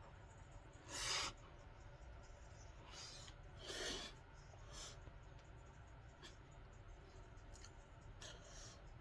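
Quiet room tone with a few short, soft hissing noises from a person working out with dumbbells; the loudest come about a second in and just before four seconds in.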